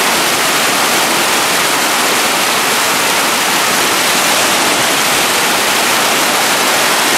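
Whitewater rapid rushing steadily over boulders: a loud, even roar of fast water.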